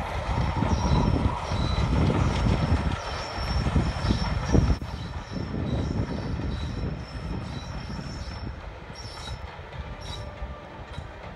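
Steam-hauled passenger train, Bulleid Battle of Britain class Pacific 34053 Sir Keith Park and its coaches, passing on the line: a heavy rumble with wheel clatter, loudest in the first few seconds, then fading as the coaches run by. Short high squeaks recur over it.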